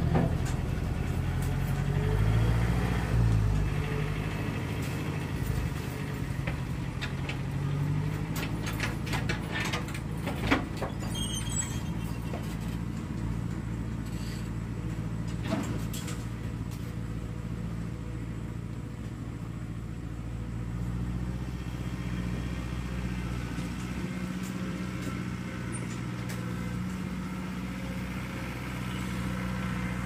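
A motor engine running steadily at idle. Its pitch wavers briefly about two to three seconds in, then holds even. There are two sharp knocks, one about ten seconds in and one about fifteen seconds in.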